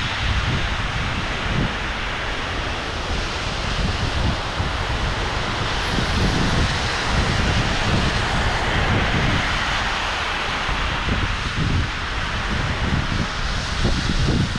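Steady hiss of rain, with gusts of wind buffeting the microphone in uneven low rumbles and cars passing on the wet road.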